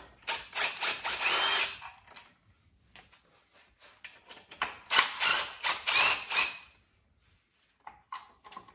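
Cordless drill driving the mounting bolts of an A/C compressor bracket into an LS engine, in two runs of about two seconds each: one just after the start and one about halfway, the motor's pitch rising and falling. A few light clicks and taps come near the end.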